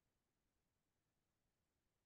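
Near silence: the microphone is muted or picking up only a faint noise floor.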